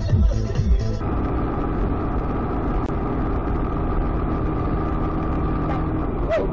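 Electronic background music with a steady beat cuts off about a second in. After that comes the steady hum of a car's engine and tyre noise, heard from inside the moving car, with a short click near the end.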